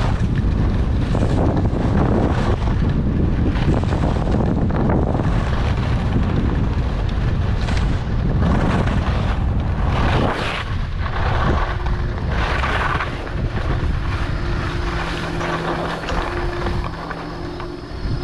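Wind buffeting a helmet-mounted camera's microphone as a skier rides down a groomed slope, with the skis scraping and hissing over the snow in several turns about halfway through. The wind eases near the end as the skier slows, and a faint steady hum comes in under it.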